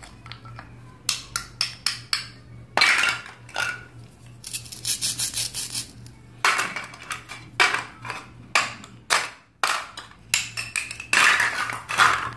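Hollow plastic toy fruit and vegetable pieces clicking and clacking against each other and against a plastic cutting board as they are handled, picked up and set down, in short irregular clusters of taps.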